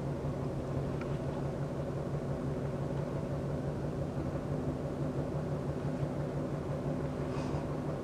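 Road noise inside a moving Mazda 2: a steady low drone over tyre roar. It is the rear-end noise that the mechanic traces to a feathered left-rear tyre rather than a wheel bearing.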